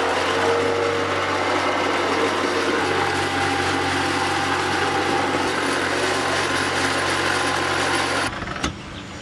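A motor on a concrete hollow-block machine running steadily, then cutting off suddenly near the end.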